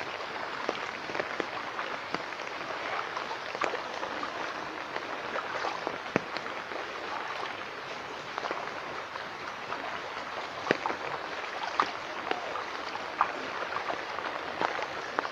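Rain falling on shallow floodwater: a steady patter with many scattered sharper drop splashes.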